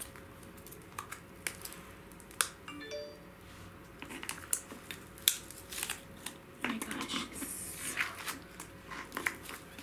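Plastic cling wrap crinkling and crackling with scattered small clicks as it is peeled off a small plastic slime tub. A brief electronic chime sounds about three seconds in.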